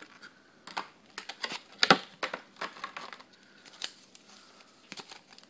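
Yu-Gi-Oh trading cards flipped through by hand beside their opened foil booster-pack wrapper, with light crinkling: a run of irregular sharp snaps and ticks, the loudest about two seconds in.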